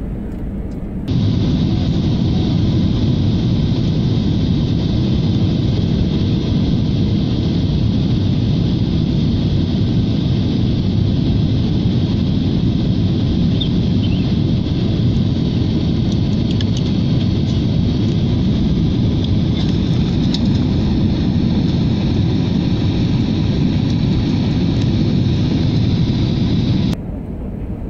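Steady roar of an airliner cabin in flight, engine and airflow noise with a faint high whine above it. It begins suddenly about a second in and stops about a second before the end.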